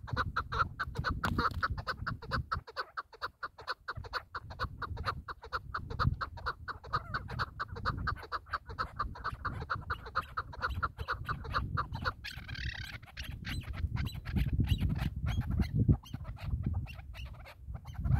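Chukar partridges calling in a long, fast, even run of short notes, with a brief higher call about twelve seconds in, after which the notes turn sparser. Wind buffets the microphone underneath.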